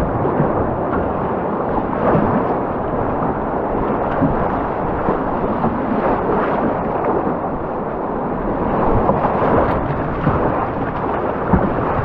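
Whitewater of a river rapid running high with spring meltwater: a loud, steady rush of water around the canoe.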